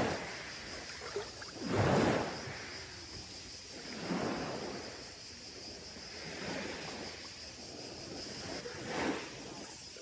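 Small Aegean Sea waves washing onto a beach and drawing back, each surge every two to three seconds, the loudest about two seconds in.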